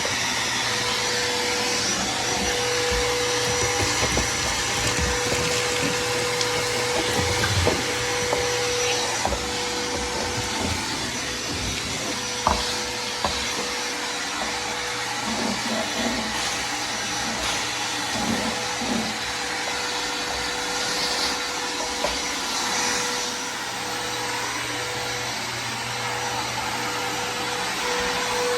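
Vacuum cleaner running steadily during cleanup, with a few knocks as it is worked over the floor.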